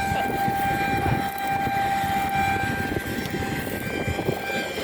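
Harvest machinery running steadily: a constant high whine over a rough engine rumble.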